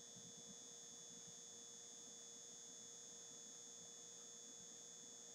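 Near silence: room tone with a faint steady hum and a high-pitched whine.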